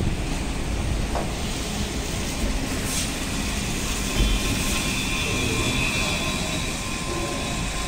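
Trolleybus passing close by on a city street over steady traffic rumble, with a steady high whine coming in about halfway through as it goes past.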